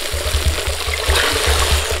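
Shallow stream running over rocks, a steady rush of water with a low rumble underneath.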